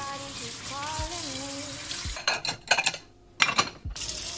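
Tap water running into a kitchen sink, then a run of sharp clatters in the second half, with a brief pause between them, before the water is heard again near the end.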